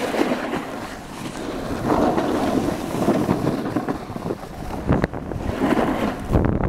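Wind rushing and buffeting over the camera microphone as the rider slides downhill, mixed with the scrape of snow under the rider, with a couple of short knocks about five seconds in and near the end.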